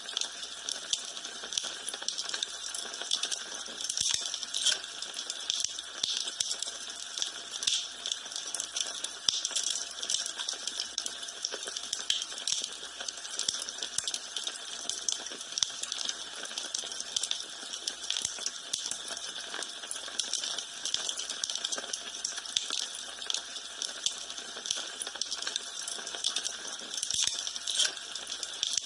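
Wood fire in a fireplace crackling steadily, with a constant stream of small sharp pops and snaps.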